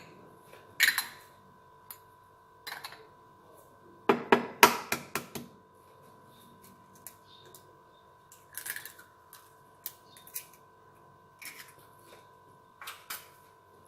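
Clicks and knocks of kitchen utensils and bowls as ingredients are added to flour, scattered through, with a quick run of sharp taps about four seconds in.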